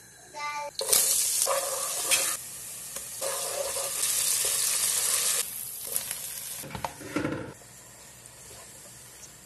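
Diced onion and tomato paste sizzling in hot oil in a pot while being stirred with a spatula. The sizzle starts loud about a second in and drops off after about five seconds, with a brief louder burst near seven seconds.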